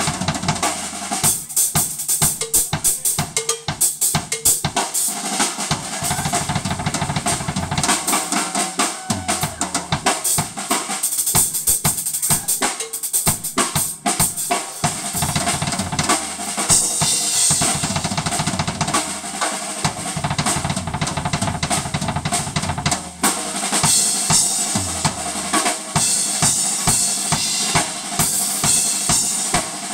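Live electric blues band playing: a drum kit with bass drum and snare carrying a steady beat, under electric guitars.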